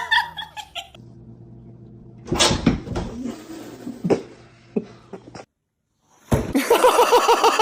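Cat vocalizing: drawn-out meows and yowls, then after a short break a fast run of short, pitched repeated calls near the end.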